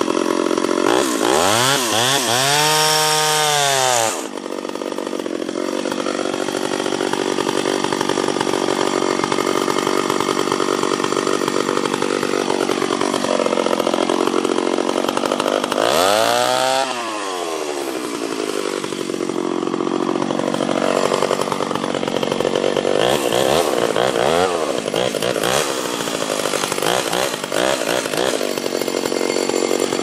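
Ported Stihl 031 AV two-stroke chainsaw running at full throttle while cutting through a tree trunk. Its pitch swings up and back down twice, about a second in and again around sixteen seconds in, and otherwise holds lower and steady under load in the wood.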